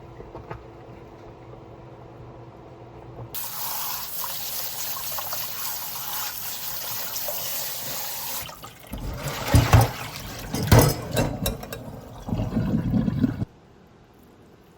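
Kitchen tap running into a sink: a steady rush of water for about five seconds, followed by irregular splashing and several loud knocks as something is handled and washed under it, cut off suddenly near the end.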